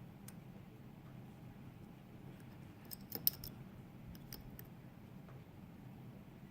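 Faint metal clicks and scraping of a lock pick working inside a Mul-T-Lock MT5+ lock's keyway. A cluster of sharp clicks comes about three seconds in, and a few more follow a second later.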